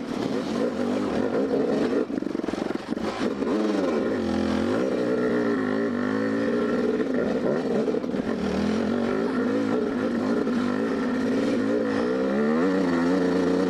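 Dirt bike engine running hard up a trail, its pitch rising and falling again and again with the throttle. Knocks and rattles from the bike going over rocks come in the first few seconds.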